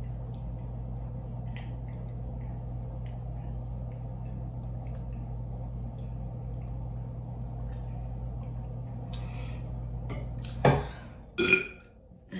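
A long drink from a plastic cup, with faint swallows over a steady low hum. Near the end comes a sharp breath out, then a loud burp.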